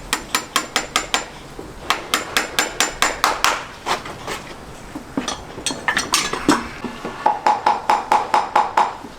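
A farrier's hammer striking metal in several quick runs of blows, about four to five a second, some strikes ringing with a clear tone.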